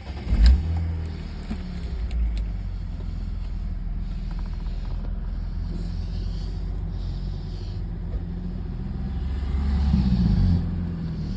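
Car engine running with a misfire: a sharp blip of revs about half a second in, a steady low idle, then the revs rise for about a second near the end and drop back.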